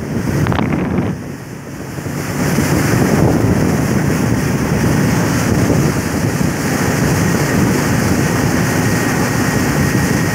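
Wind buffeting the microphone over the steady roar of a speedboat running fast under its 60 hp outboard motor, the hull rushing through the water. The noise dips briefly about a second in, then holds steady and loud.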